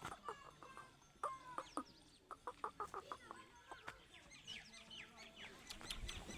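Teetar (francolin) calling in a series of short, quick clucking and chirping notes. A rapid run of notes comes about two to three seconds in, followed by higher sweeping chirps.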